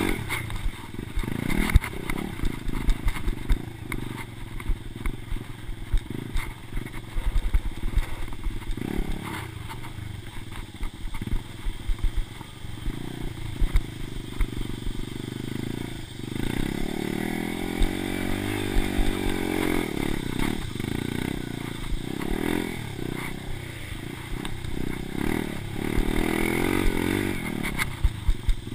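Dirt bike engine running under way on a rough trail, revving up and down with the throttle, with frequent knocks and rattles from the bumps. In the second half it pulls through longer rising and falling revs.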